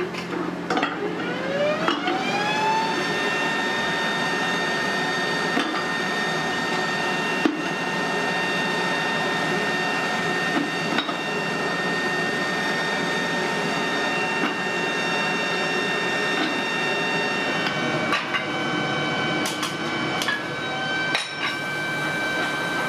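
An electric motor spins up with a rising whine over about two seconds, then runs at a steady pitch, dipping slightly twice near the end. Over it, metal scrap clinks and knocks now and then as pieces are handled.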